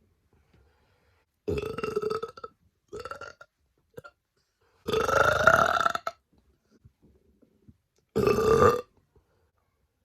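A woman burping on command: four separate burps, the longest and loudest about five seconds in, lasting about a second with a rising pitch.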